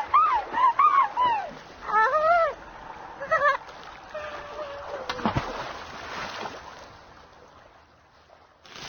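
High-pitched, squeaky cartoon character voices making wordless chirps and cries, then a held tone and a sharp hit about five seconds in, followed by a hissing, splashy noise that fades away and a short burst near the end.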